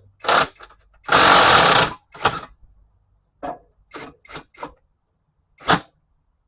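Mechanic's tool noise: a string of short, sharp mechanical bursts, with one louder burst lasting nearly a second about a second in.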